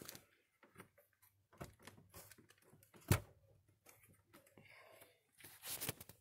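Light handling noise: scattered soft clicks and rustles, with one sharp knock about three seconds in and a short rustle near the end.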